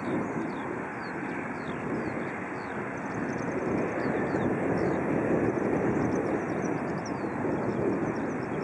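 Airbus A319 jet engines at taxi power, a steady rushing hum, with many short, faint bird chirps high above it.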